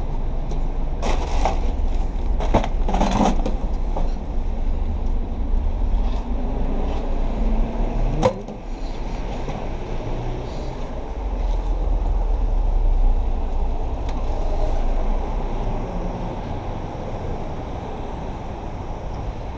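City street traffic: cars passing on a wet road, with a steady low rumble and a few brief knocks and rustles near the start and about eight seconds in.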